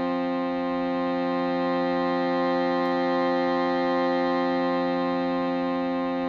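Shruti box drone with an alchemical crystal singing bowl, together holding a steady chord of many sustained tones without a break.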